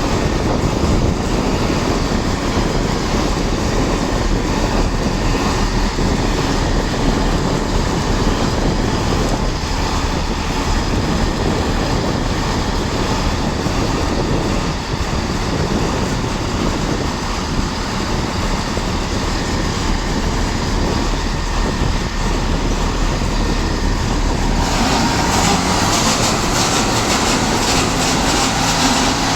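A Networker Turbo diesel multiple unit (Class 165/166) running with a quite horrible noise, a sign that something is wrong with it. The sound is steady and loud, and turns harsher and hissier about 25 seconds in.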